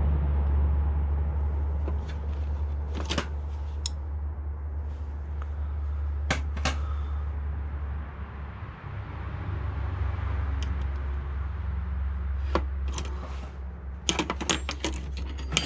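Metal wrenches clinking as a set of combination wrenches is sorted through in search of the right size: sharp clicks a few seconds apart, then a quicker run of clinks near the end, over a steady low hum.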